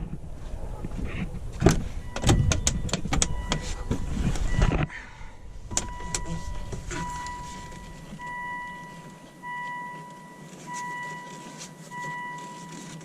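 Several seconds of clattering knocks and handling noise. Then a 2003 Volvo XC70's in-car warning chime sounds, first as one held tone, then beeping steadily about once every 1.2 seconds.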